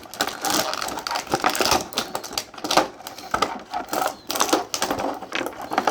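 Clear plastic packaging tray crackling and clicking as an action figure is worked out of it: a quick, irregular run of sharp clicks and rustles.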